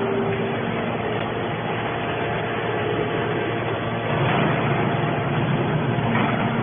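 Mini hydraulic can baler running: steady motor and hydraulic pump noise, growing a little louder about four seconds in.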